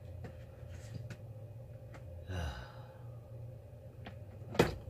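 A person sighing about two and a half seconds in, over a steady low hum, with light handling clicks and one sharp knock near the end.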